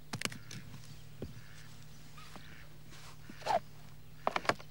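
Sharp clicks and knocks of a hard camera carrying case being opened: a metal catch snapping open at the start, then more clicks as its hinged sides are folded back and the camera inside is handled, a louder one about three and a half seconds in and three quick ones near the end. A faint steady hum lies underneath.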